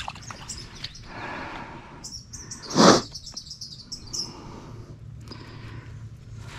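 Small birds chirping repeatedly, with a brief loud rush of noise about three seconds in.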